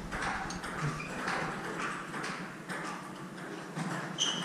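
Table tennis rally: the ball clicking off the paddles and the table in a quick run of sharp taps.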